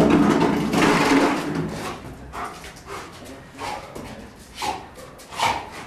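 German shepherd barking: a long, loud bark at the start, then shorter barks about a second apart.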